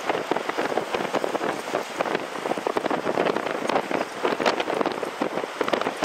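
Hurricane-force storm wind buffeting the microphone: a loud, dense crackling rush that surges and dips with the gusts.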